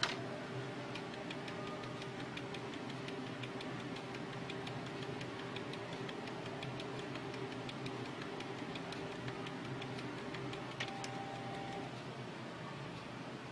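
Canon G2000 inkjet printer mechanism running: a sharp click, then a steady hum with rapid, even ticking for about ten seconds that stops near the end.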